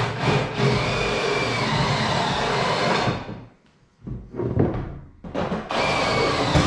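A handheld power drill, drilling holes for the nose panel's quarter-turn fasteners. It runs steadily for about three seconds and stops, gives a few short bursts, then runs steadily again near the end.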